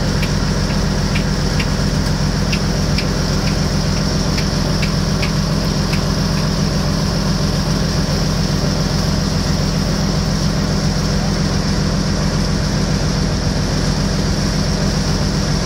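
Small boat's engine running steadily, heard from on board as an even, low drone.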